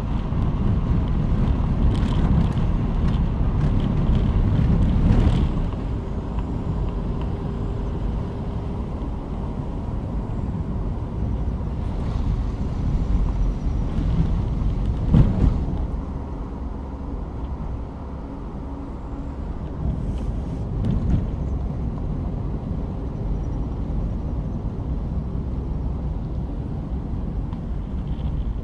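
A car driving along a road, with a steady rumble of engine and tyre noise and some wind. A few knocks and bumps come through, the loudest about fifteen seconds in.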